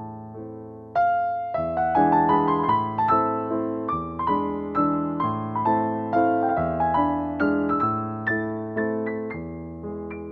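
Background piano music: a melody of struck notes that each ring and fade, louder from about a second in.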